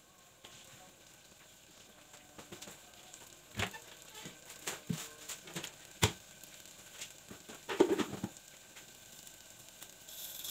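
Chopped garlic and onion sizzling faintly in a little oil in a clay pot on a low flame, with scattered small pops and clicks. A louder sizzle starts near the end.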